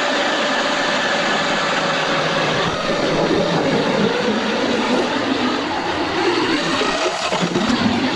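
Power ice auger running steadily as it bores a hole through thick, slushy lake ice, a loud motor with a steady whine that grows rougher in the second half as the blade works through.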